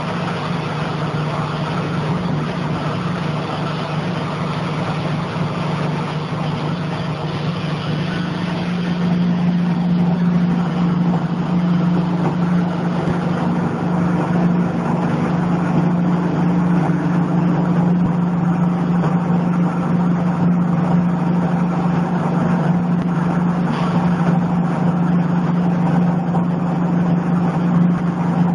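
PE film agglomerator running: its motor and rotor blades spin in the drum, making a steady low hum over a dense churning noise. The sound grows a little louder about nine seconds in.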